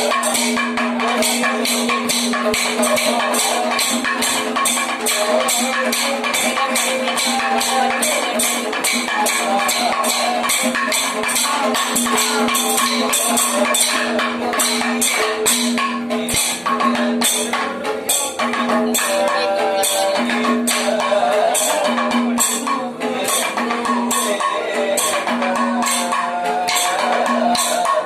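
Kathakali accompaniment music for a sari dance: a singer's wavering melody over a steady drone, with bright metallic strikes of hand cymbals keeping an even beat about three times a second.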